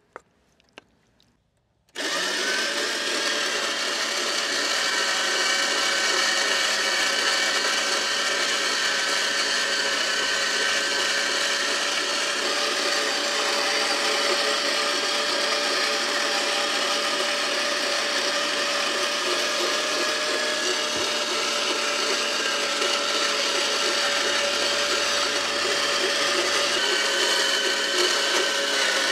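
Two light clicks, then a small electric motor switches on about two seconds in and runs steadily at one pitch, a loud whirring that changes little as it works through its load. It fits a kitchen appliance chopping or grinding food.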